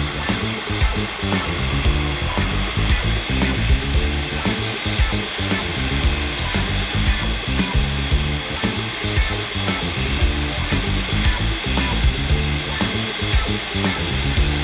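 Electric food processor running steadily at speed, its blade churning a thick minced-beef mixture; a constant motor whine carries on without a break. The mixture has gathered into a ball turning round the blade, the sign that it is fully blended.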